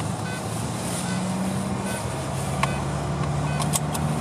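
Car engine hum and road noise heard from inside the cabin while driving, steady, with the engine note shifting slightly about halfway through and a few light clicks near the end.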